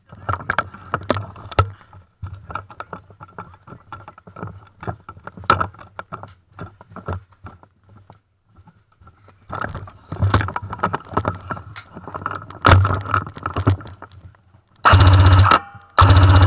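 Irregular clicks, knocks and rattles of handled gear, then near the end two loud bursts of automatic fire from an airsoft M60 electric gun: its gearbox cycling rapidly, the first burst about a second long.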